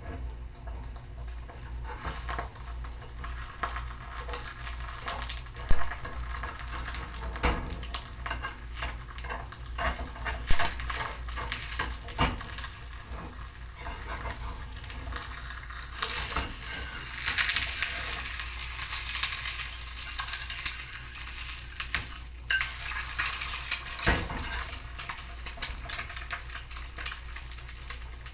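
An egg sizzling in hot oil in a small Sori Yanagi cast-iron skillet, frying to a browned, crisp finish. A metal spatula scrapes and clinks against the pan now and then as the egg is turned.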